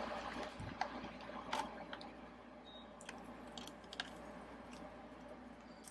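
Faint handling rustle with scattered light clicks as a small precision screwdriver works the tiny screws that hold a MacBook's RAM socket, metal tapping on metal.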